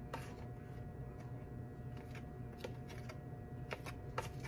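A handful of faint, light taps and scrapes as flour is added to the cake batter in a mixing bowl, over a faint steady hum.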